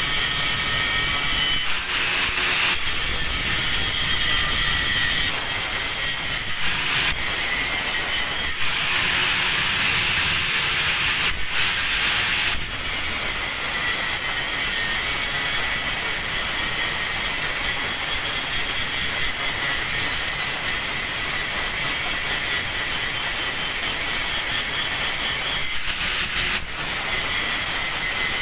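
Angle grinder working steel: a steady harsh grinding hiss with a high whine. It stops and restarts several times, the whine rising each time it spins back up.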